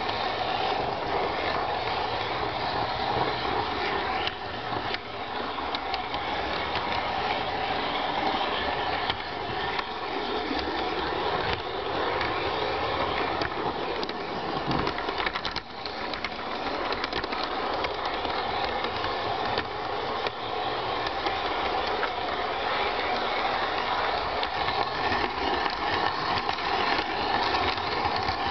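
LGB G-scale garden railway train running along the track, heard from on board: a steady whirr of its electric motor and wheels on the rails, with small clicks as the wheels cross rail joints.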